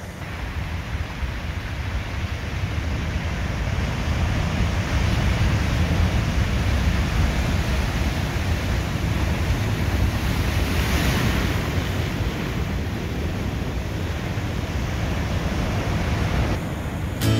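Heavy surf from a big swell breaking and washing over a lava-rock and pebble shoreline: a continuous rushing wash that swells to a louder crash about eleven seconds in. Wind rumbles on the microphone.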